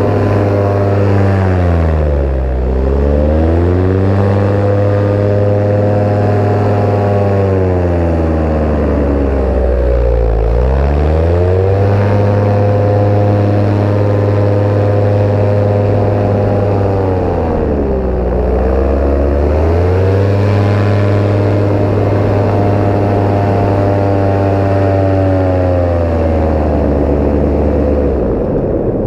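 Paramotor engine and propeller running steadily, its pitch dipping and climbing back three times as the throttle is eased off and opened again.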